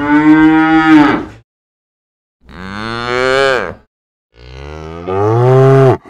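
Cow mooing three times. Each moo lasts a second or more, with short silences between.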